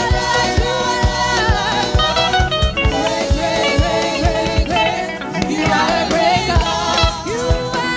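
Upbeat gospel praise song playing, with singing over a steady drum beat of about two kicks a second.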